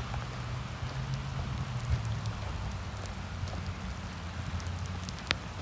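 Steady rain falling on wet pavement, an even hiss with scattered sharp drop ticks, one louder tick about five seconds in, over a low steady rumble.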